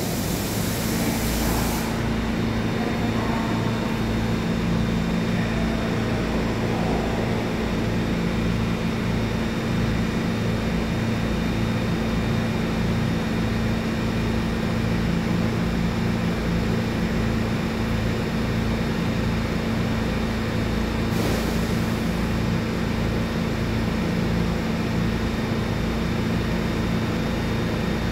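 Stationary R211 subway train idling at the platform: a steady hum of its onboard equipment and air conditioning, with a constant low tone and a pulsing low rumble. Brief hisses come at the start and about three-quarters of the way through.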